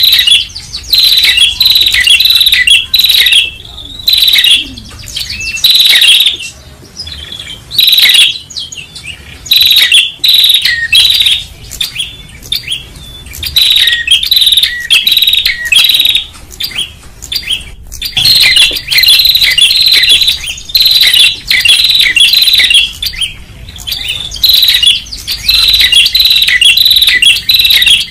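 Tailorbird (prenjak) calling loudly: rapid runs of sharp, high chirps repeating again and again with short breaks between runs.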